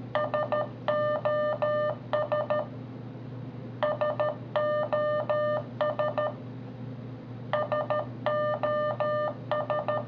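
Morse code SOS (three short, three long, three short beeps) played on a loop through a Motorola Droid phone's speaker by the AE Morse tutor app, repeating three times, over a steady low hum.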